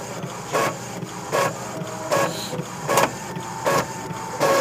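Epson L3119 EcoTank inkjet printer printing a black-and-white copy: the print head shuttles across the page and the paper feeds on, in a regular beat of passes about every three-quarters of a second.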